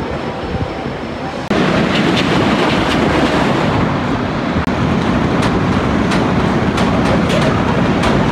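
Hoosier Hurricane wooden roller coaster train rumbling and clattering along its track. About a second and a half in, the sound jumps abruptly louder and closer, with sharp clacks over the steady rumble.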